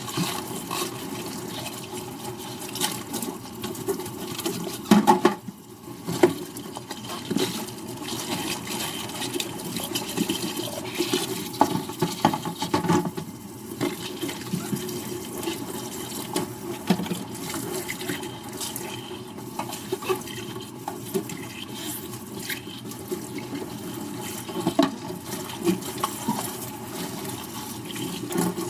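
Kitchen tap running into a sink while dishes are washed, with frequent small clinks and knocks of dishes throughout.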